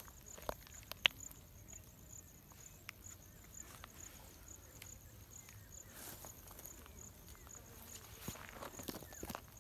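Footsteps on a rough dirt path, scattered crunches and clicks with a sharper click about a second in, over steady insect chirping, a high call pulsing evenly about three times a second.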